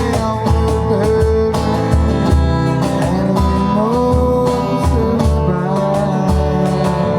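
Live band music: held melody notes that slide up and down in pitch over a bass line and a steady drum beat.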